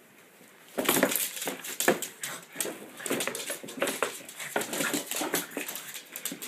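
A small dog playing with a cardboard soda carton: a rapid, irregular run of cardboard scraping and crumpling starts about a second in, mixed with the dog's own vocal sounds.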